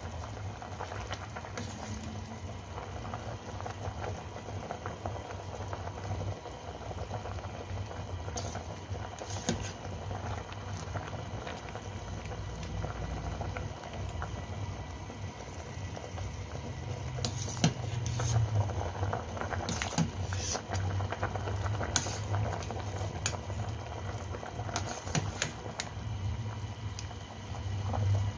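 Soup bubbling at a rolling boil in a stainless-steel pot on a gas burner, over a steady low hum, with a few sharp clicks in the second half.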